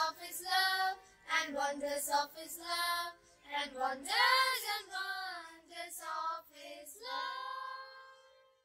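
A child singing a song solo, with no other instrument clearly heard, ending on a long held note that fades away near the end.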